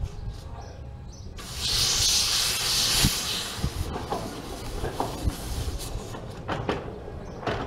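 Narrow-gauge steam locomotive letting off a loud hiss of steam for about two seconds, followed by a few scattered knocks and clanks as it moves slowly.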